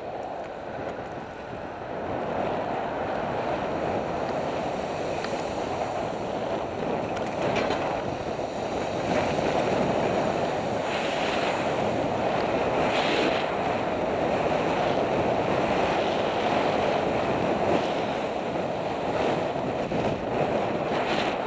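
Wind rushing over the microphone of a moving bicycle's camera, louder from about two seconds in and again near the middle as the bike picks up speed, with road traffic beneath it.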